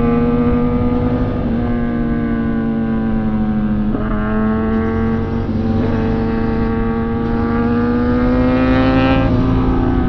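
Sport motorcycle engine running hard under acceleration, its pitch climbing slowly and dipping briefly at each upshift, about three times, with wind rumbling over the microphone.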